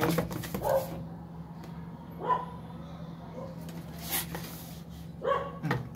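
A cardboard product box being handled and turned over, with a few sharp clicks and a rustle about four seconds in. A few short animal calls sound in the background, and a steady low hum runs underneath.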